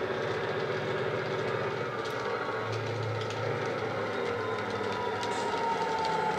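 DCC sound decoder in a Dapol OO gauge Class 59 model locomotive playing the sound of the real locomotive's EMD two-stroke diesel engine under power, through the model's small speaker. A whine slowly falls in pitch over a steady engine hum, and the sound grows slightly louder near the end as the model approaches.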